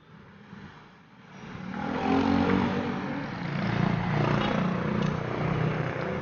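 A motor vehicle engine running close by, quiet at first, then growing loud from about two seconds in and holding with a shifting pitch.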